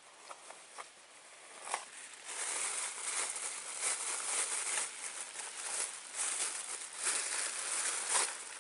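A few light clicks, then from about two seconds in a crackling, rustling hiss that swells and fades in uneven waves.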